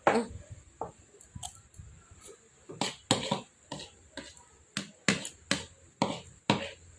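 Spoon tapping against a dish: a run of sharp, irregular taps that come quicker toward the end, about two a second.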